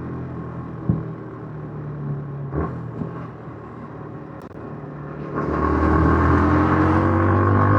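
Yamaha MT-15's single-cylinder engine with its stock exhaust, running steadily at light throttle. About five seconds in the throttle opens: it gets much louder and its pitch slowly climbs as the bike accelerates.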